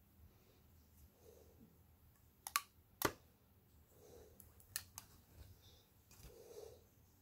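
Sharp clicks and light knocks of clarinet parts being handled and set into a hard case: a quick pair about two and a half seconds in, a louder single click half a second later, and another near five seconds.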